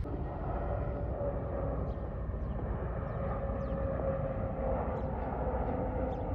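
Flynas narrow-body jet airliner on approach with gear down, its engines giving a steady rumble with a held whine. A few faint, short high chirps sound above it.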